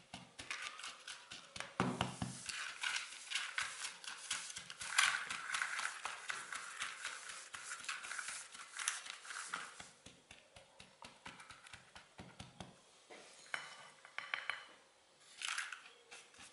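Silicone spatula pressing and scraping buttered digestive biscuit crumbs into an aluminium foil pie tin: a quick, irregular run of scratchy strokes that thins out after about ten seconds, with a few last bursts near the end.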